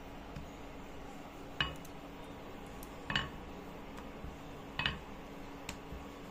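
Wooden rolling pin rolling out puri dough on a round metal rolling board. Three sharp clinks come about a second and a half apart, with a fainter one near the end, as the pin and glass bangles knock against the metal.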